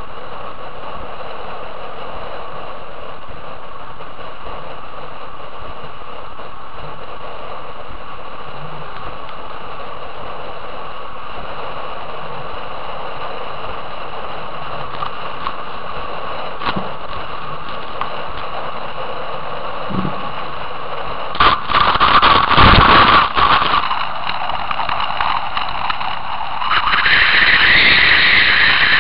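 Wind and water rushing past a camera mounted on the bow of a racing trimaran's hull, a steady hiss. About three-quarters of the way through comes a few seconds of heavy, uneven buffeting, and near the end the rush grows louder.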